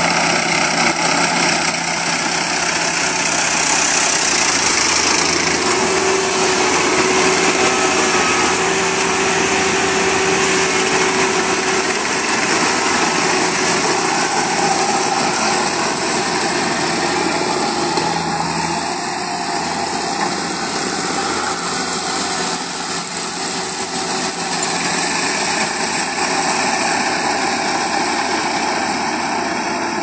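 Kubota PRO588-IG combine harvester running steadily while harvesting rice, its engine and threshing machinery making a continuous mechanical drone with a hissing high end.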